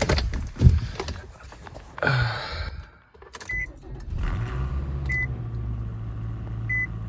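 Keys jangling and clicking, then a car engine starting about four seconds in and settling into a steady idle, with a dashboard chime beeping a few times. This is the first start on fresh oil after an oil change.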